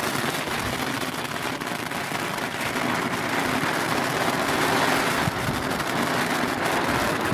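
Nico Silberblüten hand-held silver sparkler burning with a steady fizzing hiss and a dense fine crackle.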